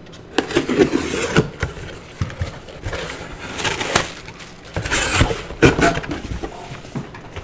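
A cardboard shipping box being opened and handled by hand: its flaps are pulled open, then the box is shifted and tipped over. This makes an uneven run of scraping and rustling with sharp knocks, loudest around one, four and five to six seconds in.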